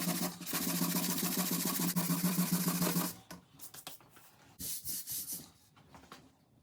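Power sander running on the wooden snare drum shell, taking off the old varnish: a steady hum under a scratchy hiss that stops about three seconds in. A few short scratchy bursts of sanding follow.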